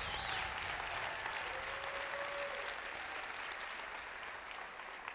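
Theatre audience applauding, the clapping slowly dying down.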